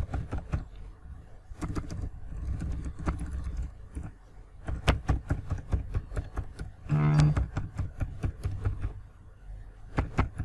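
Computer keyboard being typed on: irregular clicking keystrokes as a string of letters is entered along the keyboard rows. A brief hummed voice sound comes about seven seconds in.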